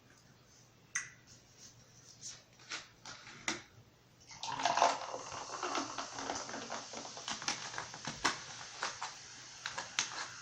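Close-miked eating sounds: a few scattered mouth clicks, then from about four seconds in a continuous run of wet chewing and smacking.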